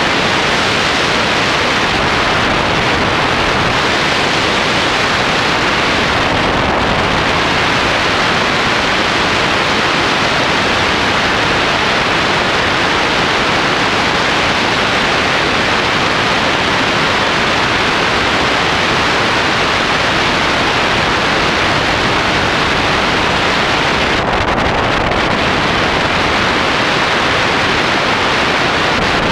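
Steady, loud wind rush over the camera microphone from the airflow of a tandem hang glider in flight.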